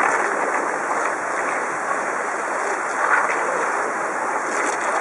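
Steady rush of water pouring over a low river weir, an even hiss of noise with no clear pitch.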